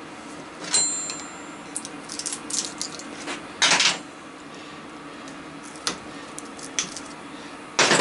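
Diagonal cutters nipping the copper windings of a ceiling-fan stator: scattered sharp clicks and metal clinks, one ringing briefly, with two louder clattering knocks of metal tools and parts being handled, about halfway and near the end.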